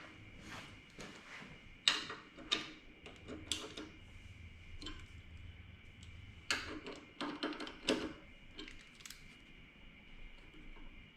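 Irregular metal clicks and knocks of hand tools and parts being handled while fitting motorcycle handlebar risers, with sharper clacks about two seconds in and a cluster around seven to eight seconds in. A faint steady high hum runs underneath.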